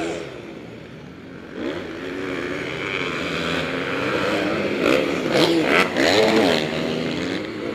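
Motocross bikes' engines revving up and down as they ride the track. They are quieter about a second in and loudest from about five to six and a half seconds in.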